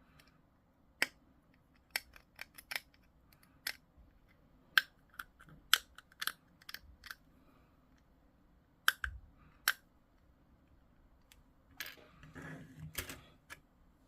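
Hobby sprue cutters snipping small plastic model parts off the sprue: a series of sharp, separate snips over the first ten seconds or so, followed by a spell of rustling and scraping as the parts are handled.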